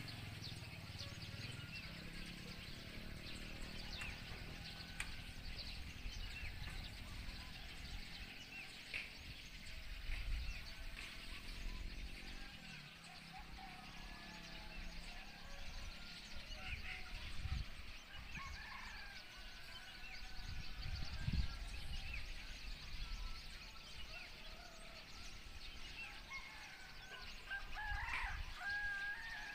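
Roosters crowing a few times, the clearest near the end, with small birds chirping and a low rumble underneath.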